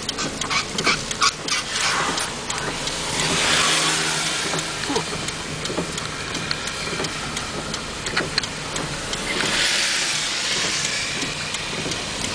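Car driving on a wet road, heard from inside the cabin: the engine hums under a steady tyre hiss that swells twice, with a few sharp taps about a second in.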